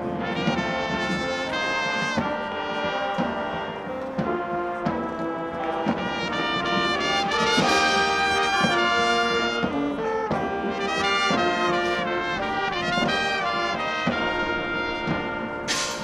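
Marching band playing, led by trumpets and trombones, in a quick run of short, changing notes over a fuller band sound. There is a bright crash near the end.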